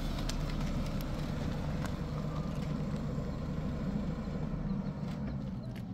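A vehicle engine running steadily, a low, even hum that eases off a little near the end.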